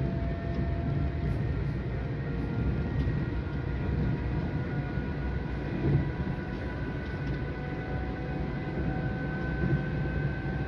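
PATCO rapid-transit train heard from inside the car while running at speed: a steady rumble of wheels on rail with faint whining tones slowly gliding in pitch. There are two thumps, about six seconds in and near the end.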